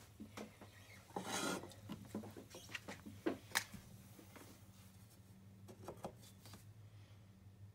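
Faint scattered taps and clicks of small objects being handled on a table, with a brief rustle about a second and a half in, over a low steady hum.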